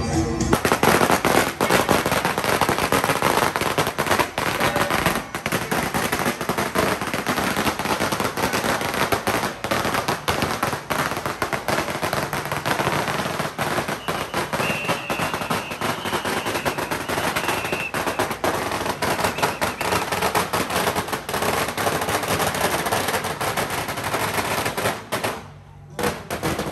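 A long string of firecrackers going off in a rapid, unbroken crackle of bangs, breaking off for about a second near the end and then starting again.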